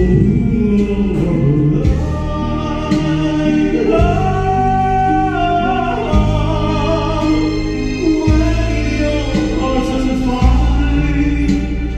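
Videoke song playing through the machine's speakers: a sung vocal over the backing music, with held bass notes that change every couple of seconds.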